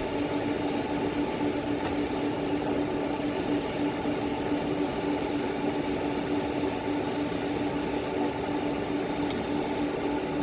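Steady flight-deck noise inside a Boeing 747 waiting for takeoff clearance with the jet engines at idle: an even rush of air with a steady hum.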